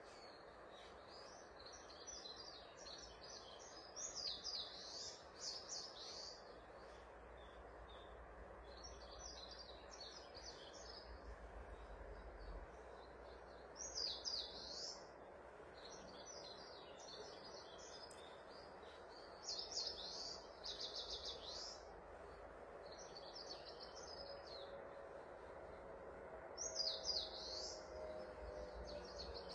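Birdsong: a bird sings short, high chirping phrases every several seconds, with quieter chirps between, over a steady background hiss.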